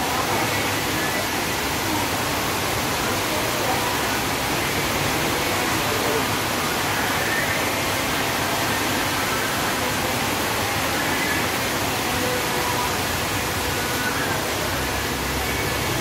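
Heavy rain pouring down steadily on a street and roofs, a dense, even hiss. Near the end a car drives past on the wet road, adding a low rumble under the rain.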